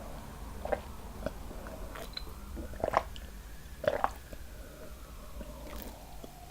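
Close-miked chewing of seafood-boil food in sauce, with a few short, sharp wet mouth sounds scattered through it.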